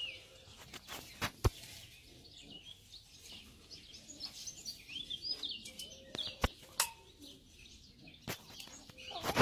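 Small birds chirping, many short high chirps through the whole stretch, broken by a few sharp clicks, the loudest about a second in.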